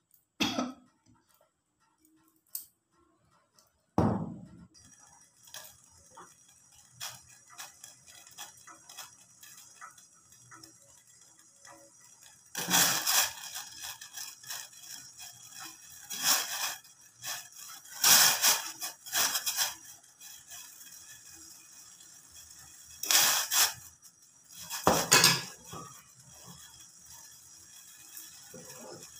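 Carrot sticks being put into a stainless steel pot of water, heard as several short clattering noises, over a steady hiss from the gas burner under it. The first few seconds are nearly silent apart from a couple of clicks.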